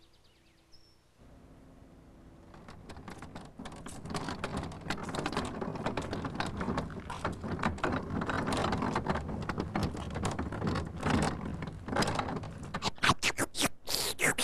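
The Noo-Noo, a toy-like vacuum cleaner, running with a crackling, rattling vacuum noise that builds up over the first few seconds and ends in a quick run of sharp crackles.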